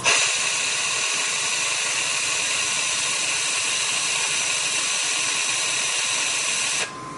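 Steady rushing hiss of gas flow from a FINEPLACER hot gas rework system's nozzle. It starts suddenly and cuts off near the end.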